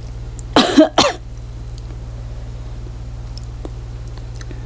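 A woman coughs twice in quick succession about half a second in, a throat-catching cough while eating 3x-spicy Samyang noodles. A steady low electrical hum runs underneath.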